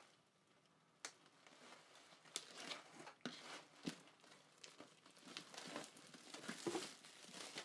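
Clear plastic wrapping on a hardcover book crinkling and tearing as it is pulled open by hand, in faint, scattered crackles that begin about a second in.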